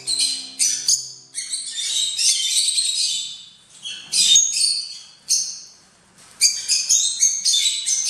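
A flock of peach-faced lovebirds chattering in shrill, high-pitched chirps and squawks, overlapping in quick bursts, with a short lull a little past the middle before the chatter picks up again.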